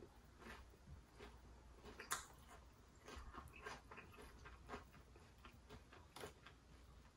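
Close-up chewing of crispy glazed fried chicken: faint crunches and moist mouth clicks at an uneven pace, with one louder crunch about two seconds in.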